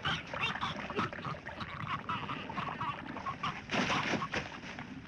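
Quiet spoken-word or sound-effect intro sample at the start of a death metal track: a jumble of voices and animal-like cries, with no instruments playing yet.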